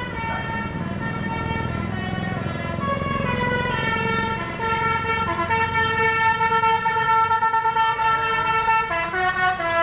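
Bus 'telolet' musical horn playing a tune of held notes that step up and down, over the bus's engine rumble. It grows louder about four seconds in and then sounds in quick repeated pulses.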